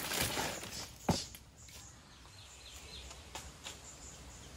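Garden ambience: a rustle with one sharp knock about a second in, then faint, short bird chirps.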